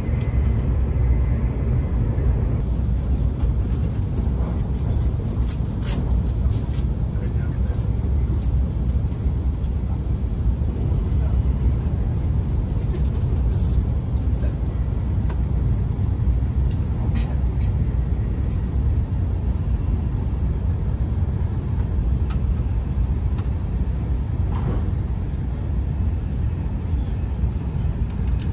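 Steady low rumble of a Shinkansen bullet train running at speed, heard from inside the passenger cabin, with a few light clicks.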